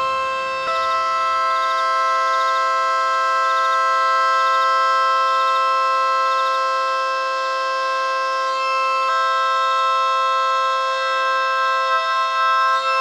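ACA Hurricane outdoor warning siren sounding a steady tone of several pitches at once, held without rising or falling.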